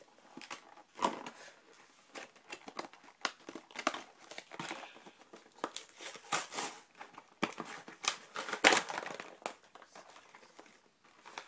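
Plastic-windowed toy packaging being handled and opened, crinkling and crackling in irregular bursts, with a couple of sharper louder cracks about a second in and near the end.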